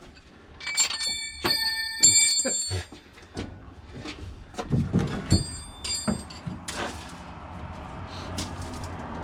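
Metal parts clanging together, each strike leaving a bright ringing, in two clusters about a second in and again near six seconds, with duller knocks and thuds between.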